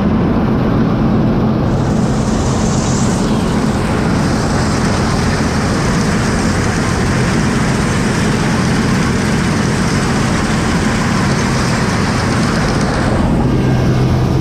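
Combine harvester running steadily: a constant low engine hum under a loud rushing noise, which brightens a couple of seconds in and eases slightly near the end.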